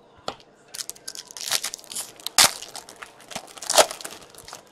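Foil hockey card pack wrapper crinkling and tearing as a pack is ripped open by hand, with a few light clicks of cards being handled. The crinkling comes in uneven bursts, two of them loudest.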